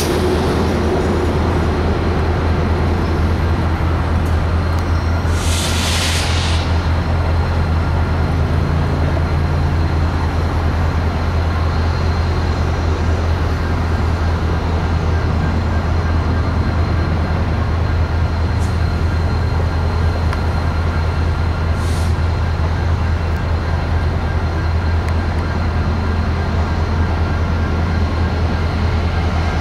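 BNSF diesel-electric locomotives running with a steady low rumble, with a short hiss about six seconds in.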